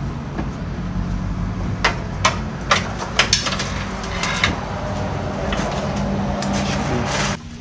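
Scattered sharp metal knocks and clanks, about half a dozen bunched in the middle, as an engine hanging from a hoist is worked down into a car's engine bay. Underneath runs a steady low hum that cuts off abruptly near the end.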